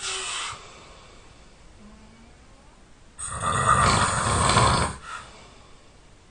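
A sleeping person snoring loudly. The tail of one breath fades in the first half second, then a single loud snore comes about three seconds in and lasts under two seconds.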